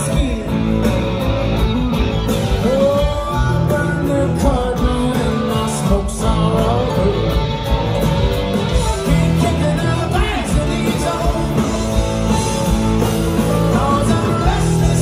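Live rock band playing, heard from the crowd: electric guitars, drums and keyboard.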